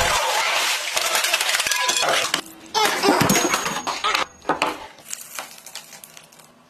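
Ice cubes clinking and rattling as they are stirred with a stick in a plastic tub. The clatter is dense at first, breaks off briefly about two seconds in, comes back, then thins to scattered clinks that die away near the end.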